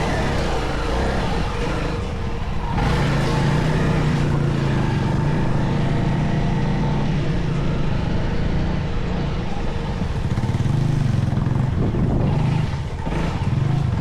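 Motor vehicle engine running at a steady pace under way, with a continuous low drone that eases briefly twice.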